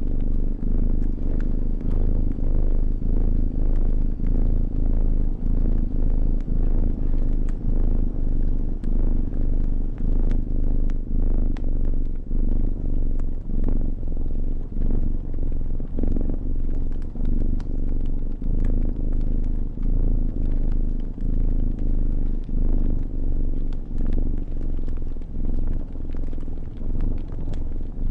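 A cat purring close up, swelling and dipping a little more than once a second with its breaths, while a fire crackles with scattered sharp pops.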